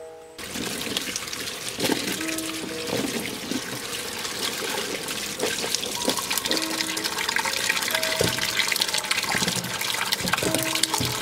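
Tap water running steadily into a stainless-steel sink while vegetables are rinsed by hand under the stream, with splashing and small clatters. The water starts suddenly just after the beginning. Light background music plays over it.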